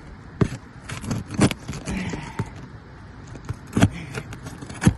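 Hand tools working roofing nails loose from under old asphalt shingles: scraping with a handful of sharp metallic knocks and clicks, the loudest near the middle and end.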